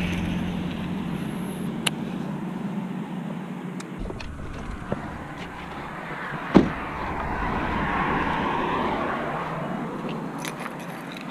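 A pickup truck door slamming shut once, a sharp thump about six and a half seconds in, over a steady background rumble.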